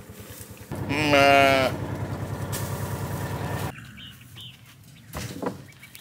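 A sheep bleats once, loudly, for about a second, starting near the one-second mark. Under it is a steady low pulsing drone that cuts off about four seconds in.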